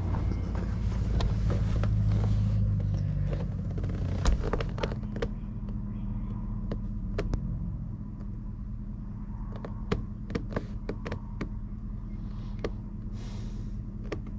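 A steady low rumble, louder for the first four seconds and dropping after a sharp knock, with scattered light clicks and knocks.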